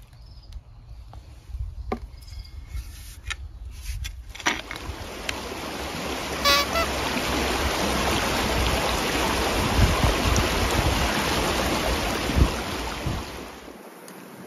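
Rushing river water: a loud, steady hiss that comes in about four seconds in and fades near the end, after a quieter start with a low hum and a few light clicks.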